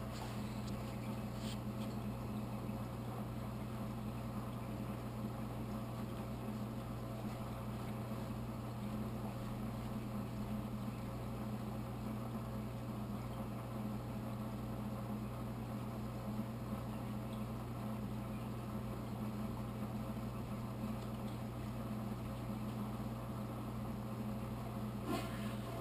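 Steady low electric hum of running motors or pumps, with a faint higher tone held above it. A brief knock comes near the end.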